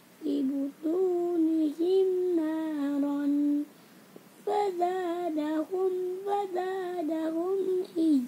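A young child reciting Quranic verses aloud in a chanted, sung melody: two long held phrases with a short pause about four seconds in.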